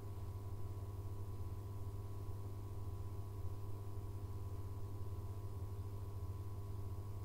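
Abukuma Express AB900 series electric train standing at a station, its on-board electrical equipment giving a steady low hum with a few faint, even tones above it.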